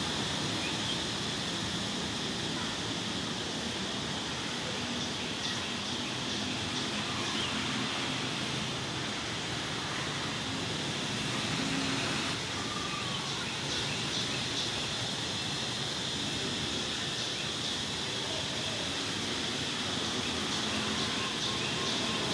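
Steady outdoor background noise, an even hiss and hum with a steady high band, with faint short high chirps now and then.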